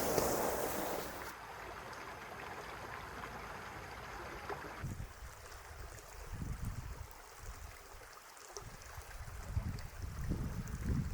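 Outdoor ambience of a running brook, with gusts of wind rumbling on the microphone in the second half. The sound changes abruptly twice.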